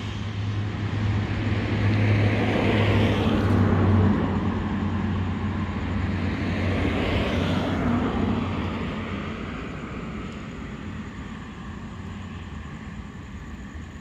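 Road traffic passing: vehicle noise swells twice, about three and seven seconds in, each time climbing in pitch to a peak, then dies down to a quieter steady background.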